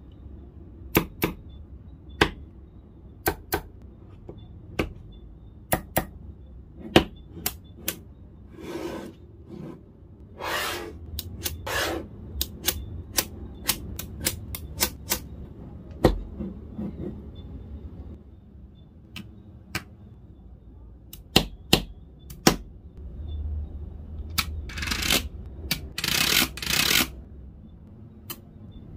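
Small magnetic balls clicking as they snap together one at a time, at an uneven pace, with a few longer scraping rattles of balls sliding over one another.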